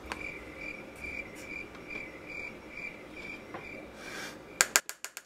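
A cricket chirping steadily in the background, a faint repeated chirp about twice a second.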